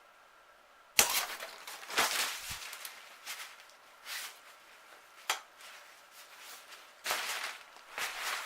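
A sudden sharp knock about a second in, followed by irregular clattering and scraping noises, with another burst of clatter about seven seconds in.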